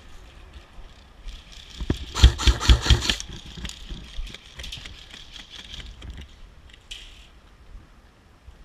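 Airsoft rifle firing a quick string of about seven shots in under a second, a little over two seconds in, over a steady high whine. Fainter scattered shots follow.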